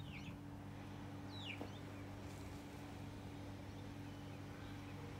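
Faint outdoor ambience: a few short chirps from small birds near the start and about a second and a half in, over a steady low hum.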